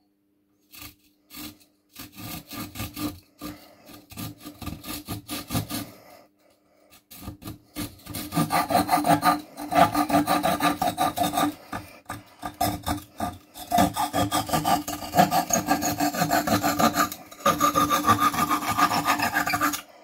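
Victorinox Trailmaster pocketknife saw blade cutting dry pine with back-and-forth strokes. A few single strokes come first, then a quicker run, a short pause about six seconds in, and then faster, louder sawing that stops shortly before the end as the cut goes through.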